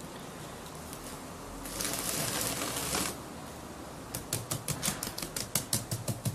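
Hands tapping and patting the sides of a mould filled with wet cement, to settle the mix and drive out air bubbles so the cast has no holes. A rustling hiss comes about two seconds in, then from about four seconds in a quick run of sharp taps, four or five a second.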